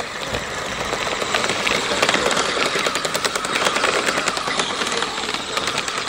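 Kyosho Blizzard electric RC snowcat driving through deep snow: a fast, continuous clatter from its tracks over a hiss of churned snow.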